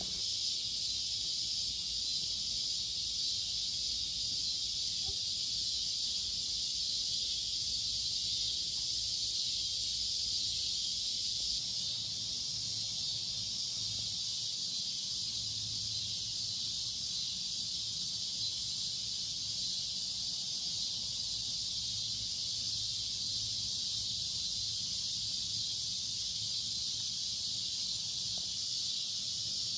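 Evening chorus of late-summer insects: a steady high-pitched shrilling that never breaks or changes.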